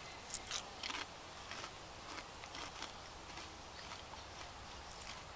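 Potato chip being bitten and chewed: a few sharp crunches in the first second, then fainter crunches now and then as the chewing goes on.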